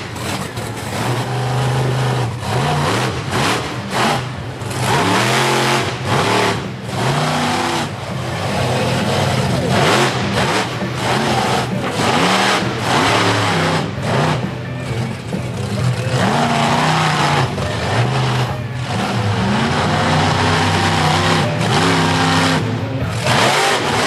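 Bigfoot monster truck engine revving hard and falling off again and again, its pitch rising and dropping with each push of the throttle as the truck charges over a car-crush jump.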